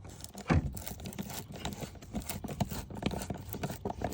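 Irregular clicks and knocks of the plastic air filter housing being handled and fastened back together, with a louder knock about half a second in.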